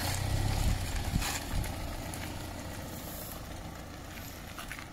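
Red Mini hatchback driving past close by on a wet road and pulling away, its engine rumble loudest in the first second or so and then fading steadily.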